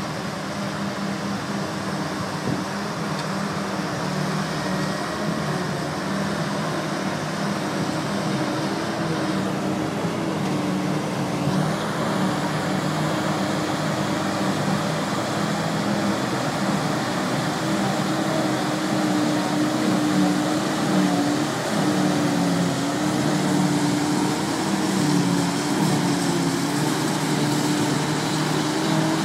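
Farm machinery engine running steadily at silage work, its hum wavering a little in pitch.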